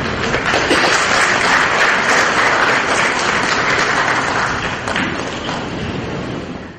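Audience applauding, building just after the start, easing a little after about five seconds, then cutting off suddenly.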